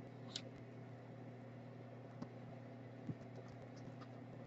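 Quiet workbench room tone: a faint steady low hum with three soft ticks spread through it.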